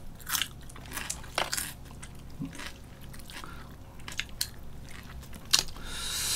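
Fried chicken being bitten and chewed, with scattered crisp crunches and a brief hiss near the end.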